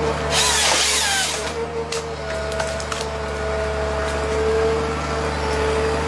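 Harvester head's chain saw cutting through a standing tree trunk for about a second, its pitch falling as it cuts. Under it the harvester's engine and hydraulics run steadily, and a few sharp cracks of wood follow as the tree is felled.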